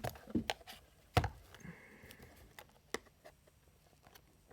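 A few scattered clicks and knocks of small objects being handled on a desk, the loudest about a second in, as scissors are fetched for cutting open packaging.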